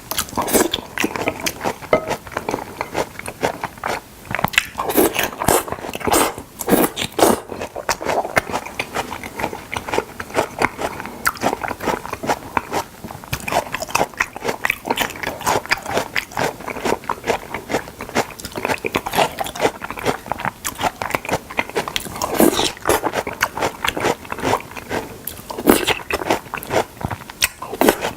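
Close-miked wet chewing and biting of salmon, a steady run of smacking, sticky mouth sounds with louder bites now and then.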